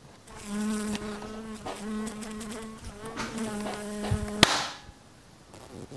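A housefly's buzz, a steady drone that breaks off briefly a couple of times, cut off about four seconds in by one sharp slap as the fly is swatted.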